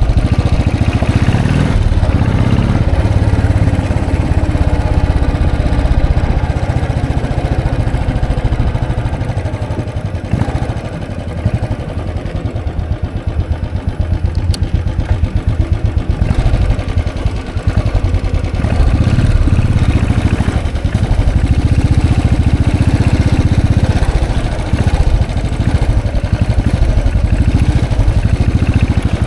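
Royal Enfield Classic 500's single-cylinder engine running as the motorcycle is ridden, with a steady fast pulse of firing strokes. It eases off in the middle and picks up again about two-thirds of the way through.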